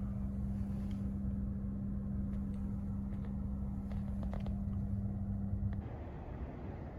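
Inside a Nissan car being driven: a steady low engine and road rumble, with a steady hum that cuts off about six seconds in, and a few faint clicks.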